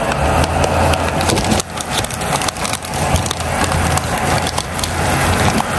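Butter, brown sugar and honey syrup bubbling and crackling in a pan as it caramelizes, with a low steady hum underneath.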